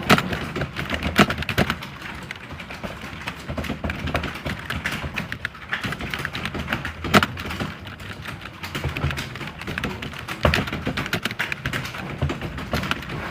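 Computer keyboard being typed on continuously, a fast irregular stream of key clicks with a few louder strokes, such as a spacebar or enter key, standing out.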